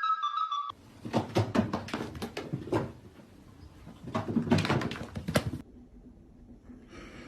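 The end of a flute-like melody, then a run of knocks and thumps in a small room, coming in two clusters about a second in and around four seconds in.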